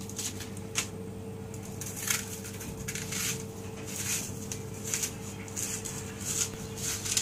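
Kitchen knife scraping and peeling the papery outer skin and layers off a whole onion: a string of short, dry scrapes, roughly one every half-second to a second, over a steady low hum.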